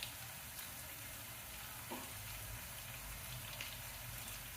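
Food frying in a pan: a steady, faint sizzle with a few small ticks, and one light knock about two seconds in.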